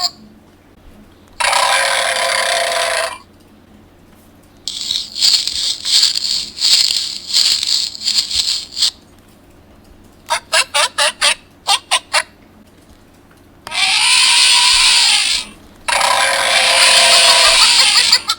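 A series of short recorded animal sound effects played from a children's sound book's small electronic speaker, one clip after another with short quiet gaps. There are about five clips: a hissing-like burst, a rapid chattering run of pulses, a sparser string of pulses, a call that rises and falls in pitch, and a final noisy burst.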